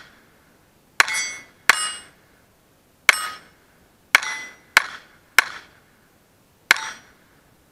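Browning Buck Mark .22 pistol firing seven shots in quick, uneven succession at steel plates, starting about a second in. Most shots are followed by the bright ring of a steel plate being hit.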